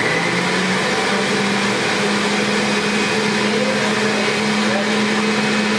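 Hamilton Beach centrifugal juicer motor running empty at full power with a loud, steady whine. Its pitch rises a little over the first couple of seconds as it comes up to speed, then holds steady.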